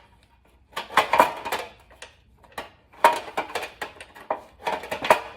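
Motorcycle roller drive chain clinking and rattling as it is fed by hand around the sprockets, in three short bursts of metal clatter: about a second in, about three seconds in, and near the end.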